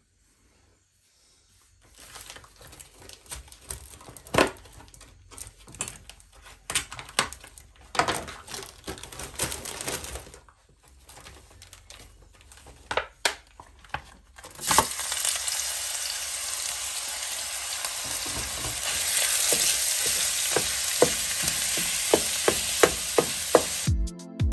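Scattered knocks and clicks for the first half, then ground meat goes into hot oil in a pot about 15 seconds in and sizzles loudly and steadily, with a wooden spoon knocking and scraping as it is stirred.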